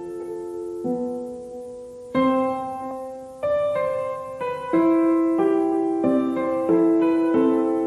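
Background music: a piano playing slow, sustained chords, each struck and left to ring before the next.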